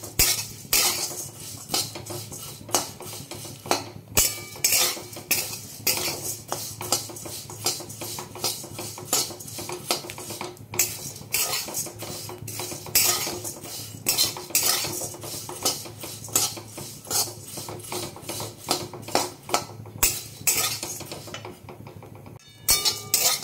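Metal spatula scraping and knocking against a metal kadai as flattened rice (chire) is stirred continuously while it roasts; irregular strokes, about two a second, with a brief pause near the end.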